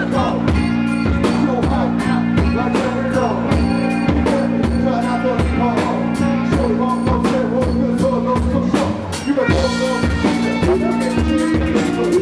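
Live rock band playing loudly: a drum kit keeping a steady beat on kick, snare and cymbals over a bass guitar line.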